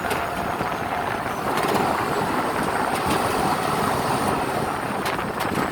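Motor vehicle running steadily during a ride, an even noisy rumble with a few brief clicks or rattles.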